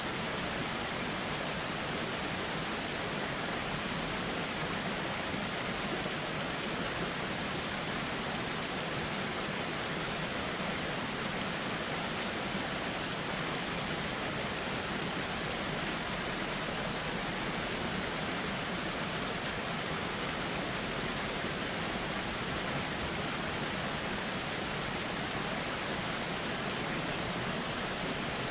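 Flowing river water rushing steadily and evenly, with no changes or separate splashes.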